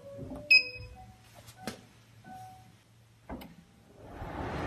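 Colzer 70-pint dehumidifier being switched on: a short beep from its control panel about half a second in, two light clicks, then its fan starting up near the end as a steady fan noise builds.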